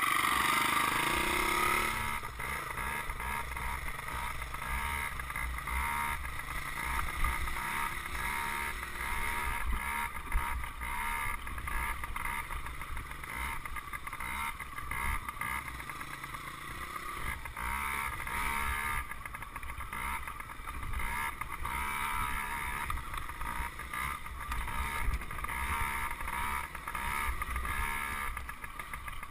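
Small dirt bike engine running while riding along a dirt trail, heard from a camera mounted on the bike.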